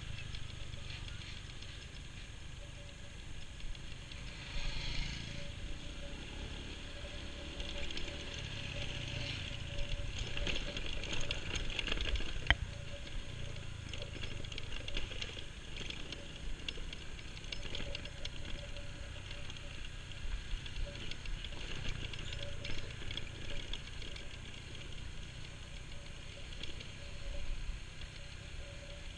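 Motorcycle riding along a bumpy dirt road, heard from on the bike: the engine running steadily under road and wind noise, with the bike rattling over the ruts and a sharp knock about halfway through.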